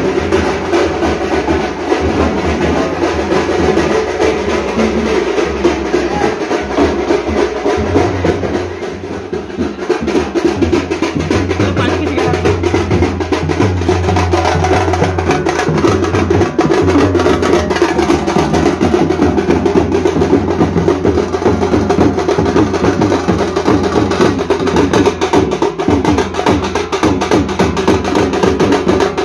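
Percussion-led music with drums, playing without a break; it dips briefly in loudness about eight to ten seconds in.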